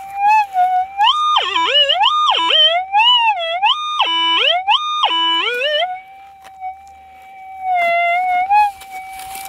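Metal detector's steady threshold tone breaks into loud target signals as the search coil sweeps over a buried target in a pile of dug-out dirt. The pitch swoops up and down, jumping high and dropping low, for about five seconds, then settles back to the steady tone, with one more short wobble near the end.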